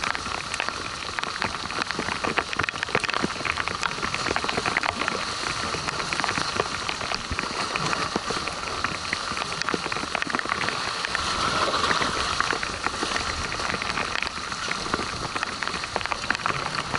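Rain and sea spray pattering steadily: a dense crackle of drops landing close by.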